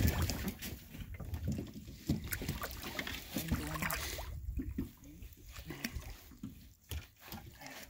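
A hooked fish thrashing and splashing at the surface beside a boat as it is pulled in by hand, with water sloshing and scattered knocks and clicks.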